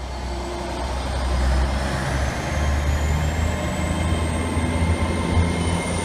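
Train sound effect: a loud low rumble that swells over the first second or two and then holds, with a faint high whine rising slowly in pitch throughout.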